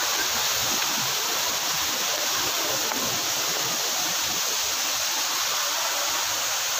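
Waterfall pouring into its pool, a steady, even rush of falling water.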